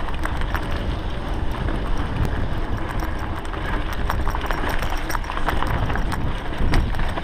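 Wind buffeting an action camera's microphone as a mountain bike rolls over a bumpy dirt track, with tyre rumble and scattered rattling clicks from the bike.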